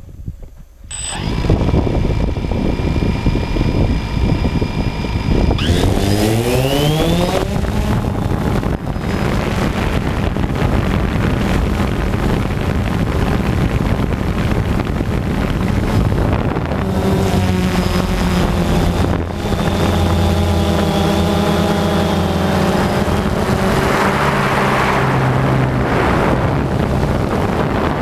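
Quadcopter drone's electric motors and propellers starting up about a second in and idling with a steady whine. They then rev up in a rising whine as it lifts off, and carry on as a loud steady buzz that shifts in pitch as it flies.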